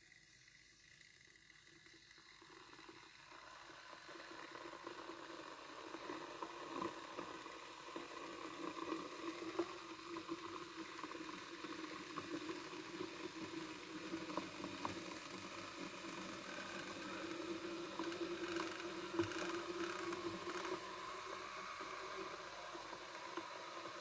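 Glass electric kettle heating ice-cold water from melted ice: a hiss with light crackles, growing louder over the first several seconds and then holding steady as bubbles form on the heating plate.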